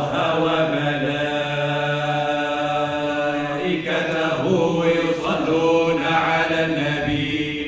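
All-male vocal group chanting a nasheed without accompaniment, holding long sustained notes together; the melody moves to new notes about four seconds in. The frame drums are silent.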